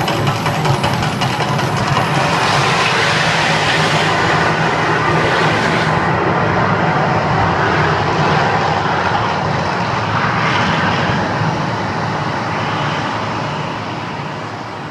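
Loud, steady roar of the Mirage volcano attraction's gas-fired flame effects, with a deep rumble under it, dying down over the last few seconds.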